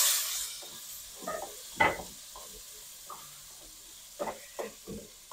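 Ground beef sizzling in hot oil in a steel pot, loud at first and dying down over the first second to a quieter sizzle. A metal spatula scrapes and knocks against the pot several times as the meat is stirred.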